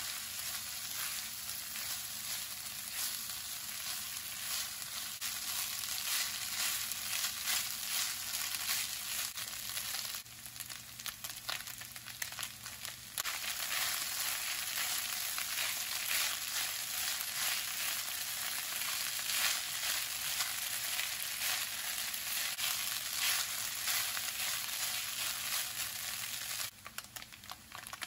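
Rice and vegetables sizzling in a hot wok as they are stir-fried, with repeated scraping and tossing strokes of a spatula. The sizzle goes quieter for about three seconds a third of the way in and drops away again just before the end.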